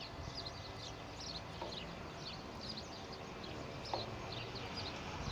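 Small birds chirping: many short, high chirps, mostly falling in pitch, coming in quick clusters over a steady low background.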